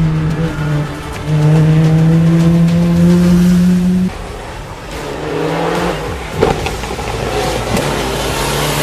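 Background music with sustained low notes, then, from about four seconds in, a hill-climb race car's engine approaching under acceleration, with one sharp crack about six and a half seconds in.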